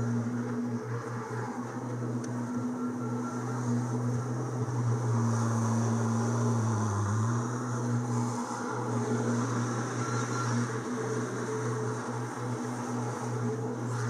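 Skid steer's diesel engine running steadily under load while loading large square hay bales, its pitch dipping briefly about seven seconds in as it lugs.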